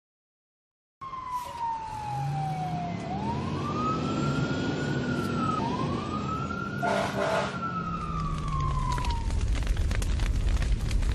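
Cartoon fire engine siren sound effect: after a second of silence, a slow wail that falls, rises and falls again over about eight seconds, with a short horn blast about seven seconds in. Near the end a rumbling noise full of crackles builds up as the house ahead burns.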